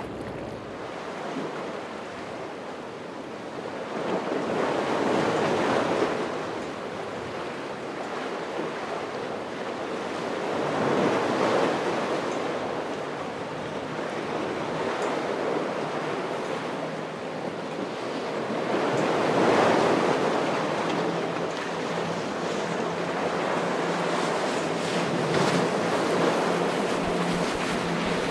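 Ocean surf breaking in repeated surges, with wind rushing on the microphone. A faint steady low hum comes in during the last several seconds.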